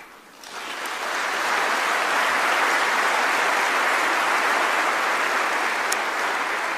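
Large audience applauding, swelling over the first second or so and then holding steady.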